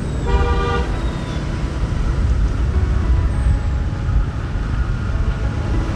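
Road vehicle and traffic noise: a steady, heavy low rumble, with a brief steady tone about half a second in.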